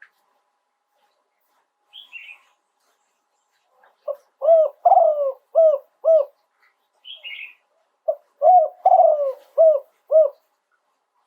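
Spotted dove cooing in two phrases of about five low coos each, the first starting about four seconds in and the second about eight seconds in. A short high chirp comes before each phrase.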